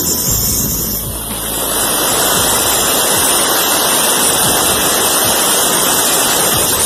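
Abrasive chop saw's cut-off wheel grinding through galvanized steel pipe: a loud, steady grinding hiss. It dips briefly about a second in, then holds steady.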